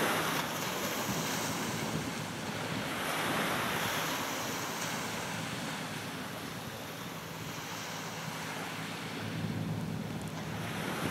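Wind buffeting the microphone in gusts over the wash of choppy water and the passing fishing boat's wake, with the low steady hum of the boat's engine underneath.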